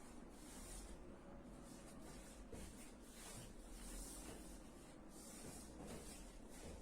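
Near silence: faint room noise with a low hum and a soft hiss that swells and fades.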